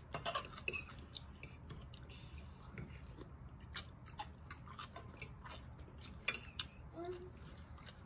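Close-up eating sounds: chewing and wet mouth clicks from eating a spicy cucumber salad, with light clinks of a fork on the plate, in short irregular snaps.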